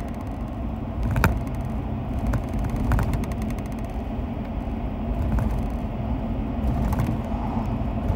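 Steady low rumble of engine and road noise inside a car's cabin, with a few light clicks and knocks, the sharpest about a second in.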